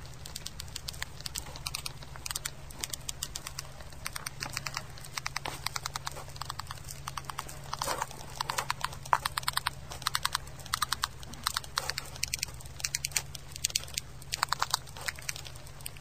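Termites (white ants) tapping their heads against the timber they are eating, a communication signal, heard as short bursts of rapid clicking repeated throughout, over a steady low hum.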